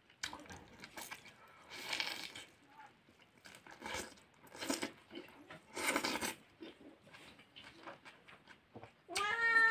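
Close-miked chewing and crunching of a mouthful of raw green leaves and beef innards, in several loud bursts. Near the end a cat starts a long meow.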